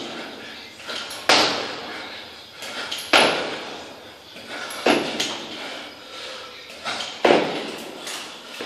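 Four heavy thuds, one about every two seconds, each with a short echo, from a person's repeated bodyweight squat reps: feet landing hard in a stairwell-like hallway, with hard breathing between.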